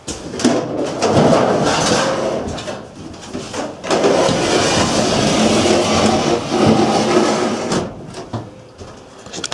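Sliding observatory roof pushed open by hand, its fixed casters rolling along an extruded aluminum track: a steady rolling noise in two pushes of about three seconds each, with a short break between.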